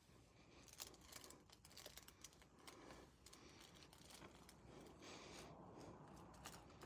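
Near silence with faint crinkling rustles and a few small ticks: puppies shifting about on a plastic-backed pee pad.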